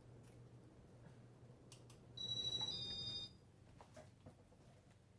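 A two-tone electronic beep lasting about a second, starting about two seconds in, over a faint low hum.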